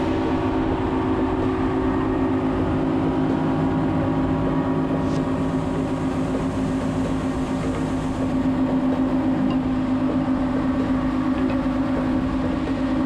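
Twin Mercury outboard motors running steadily at cruising speed, a constant engine drone over the rushing hiss of the hull's wake and spray.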